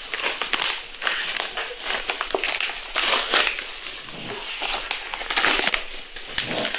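Plastic wrapping and bubble wrap crinkling and rustling as it is pulled open and handled, in an irregular stream of crackles with no pause.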